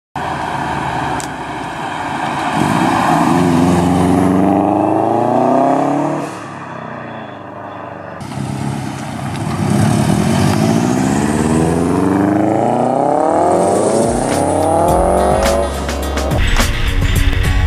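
Subaru WRX's turbocharged flat-four breathing through a new 3-inch XForce catback exhaust, accelerating hard up the road twice, the engine note climbing in pitch on each run. Music comes in near the end.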